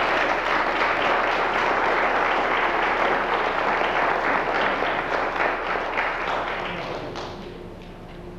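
Audience applauding after an oath of office, steady and then fading out about seven to eight seconds in.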